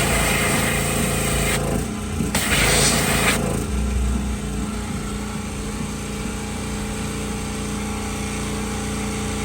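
Small-engine pressure washer running steadily, with two bursts of high-pressure spray hissing in the first few seconds.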